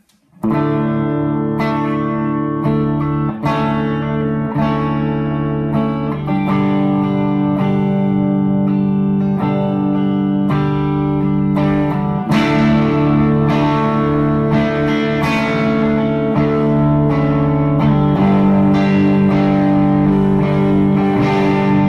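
Les Paul electric guitar through a Bad Cat Bobcat 5R combo amp with the gain almost full, playing an overdriven lick of held chords and notes. About twelve seconds in the lick repeats louder and brighter, as the amp's rip switch is engaged and brings out more of the amp's own overdrive.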